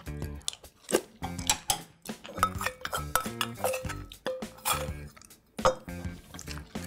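Metal cutlery clinking and scraping against dishes during a meal: a string of sharp clinks, several with a short ring.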